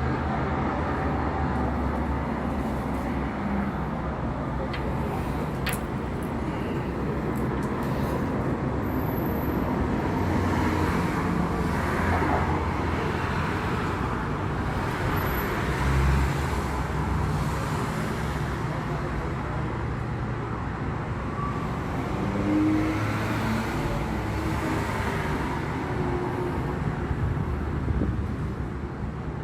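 Steady outdoor background rumble, a low traffic-like drone with slight swells in loudness.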